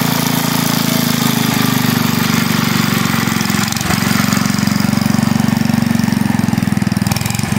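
Old Springfield lawn tractor's small engine running steadily as the tractor drives along, with a brief dip in engine speed about four seconds in.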